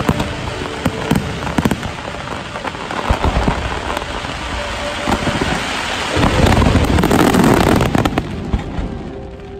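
A dense fireworks barrage: many overlapping bursts and a continuous crackle from the shells. It is loudest and densest about six to eight seconds in, then thins out near the end.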